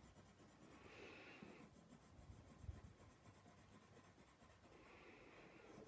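Faint scratching of a coloured pencil shading on paper, in two short spells: one about a second in and one near the end.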